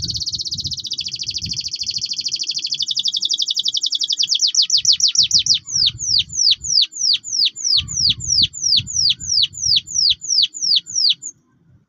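Domestic canary singing: a fast rolling trill for about four seconds, then slowing into a run of separate, sharply falling notes at about three a second, which stops just before the end.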